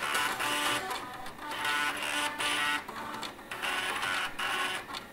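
Floppy disk drives and stepper motors driven as musical instruments, their motors stepping at set pitches to play a melody of short pitched notes with gaps between them, in a higher register with no bass line.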